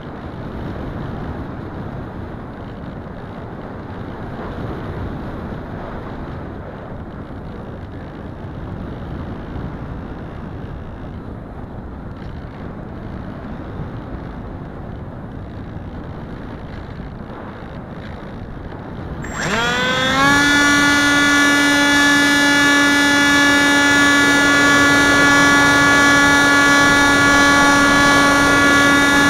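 Rushing air noise from a small foam flying wing gliding with its electric motor throttled back, heard from a camera on board the plane. About two-thirds of the way through, the electric motor and propeller spool up and settle into a loud, steady whine.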